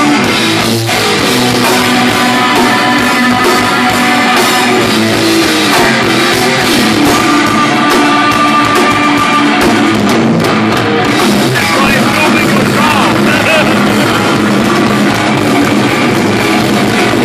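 Black metal band playing live: distorted electric guitar and drum kit in a loud, steady, dense wall of sound.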